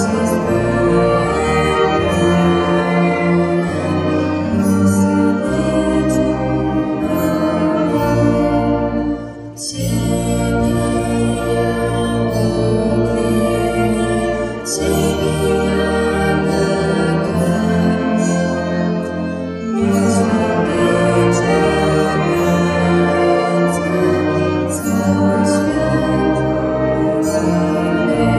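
Wind band of saxophones and brass playing a slow song arrangement in held chords, moving through phrases about every five seconds.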